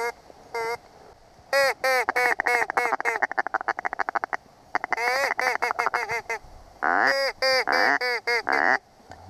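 A hand-blown duck call worked by a hunter to lure ducks, sounding loud strings of quacks. A run of falling quacks is followed by a fast chatter in the middle, then two more quack series near the end.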